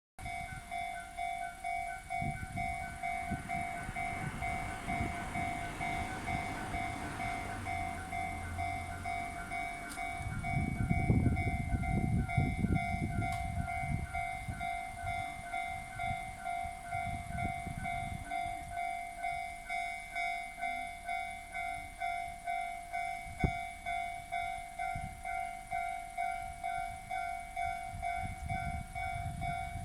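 Two electronic level-crossing warning bells, one on the Jōmō Electric Railway and one on the Tobu Kiryu Line, ringing at the same time with different tones and different rhythms. A train's rumble builds and is loudest about eleven to thirteen seconds in. There is a single sharp knock near the end.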